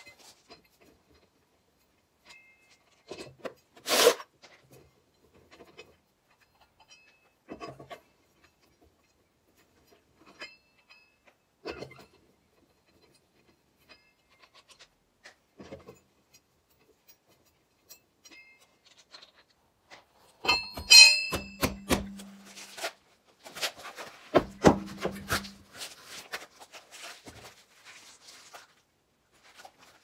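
Scattered metallic clicks and scrapes of a four-way cross lug wrench working the lug nuts off a minivan's front wheel. About two-thirds of the way through comes a louder cluster of metal clanks with brief ringing.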